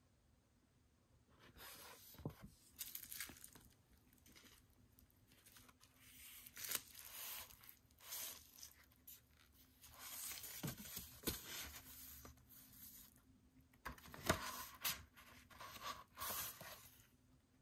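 Paper handling: a photobook's glossy pages rustling and being turned by hand, in irregular bursts of rustles and scrapes that begin after a second or so of quiet.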